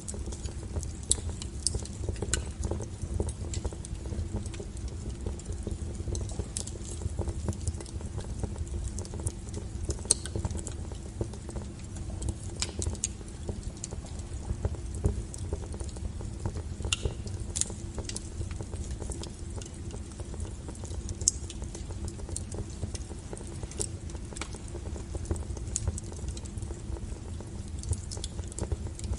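Wood fire burning: a steady low rumble of flames with frequent sharp crackles and pops from the burning firewood, a few of them louder.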